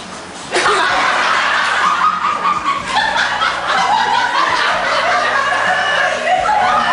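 A group of people laughing. The laughter breaks out suddenly about half a second in and keeps going.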